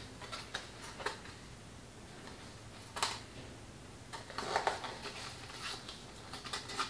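Light handling sounds of a foam-core cutout and a foam brush being picked up and worked: a few short taps and rubs, with a sharper tap about three seconds in and a small cluster of knocks and rubs a little after four seconds.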